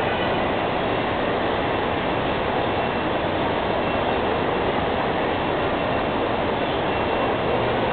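Steady airport-terminal din: a constant rushing rumble of a moving walkway and the busy concourse around it, with a faint murmur of crowd voices, unchanging throughout.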